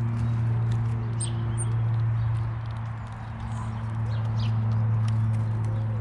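A steady low hum with faint scattered clicks and taps, as a nuthatch pecks at seed on a wooden bird table. A few short, high bird chirps come about a second in and again near four and a half seconds.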